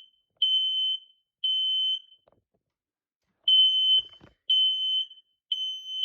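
Smoke alarm sounding its self-test after its test button is pressed: high-pitched beeps in the three-beep temporal pattern. The last two beeps of one group are followed by a pause of about a second and a half, then a full group of three.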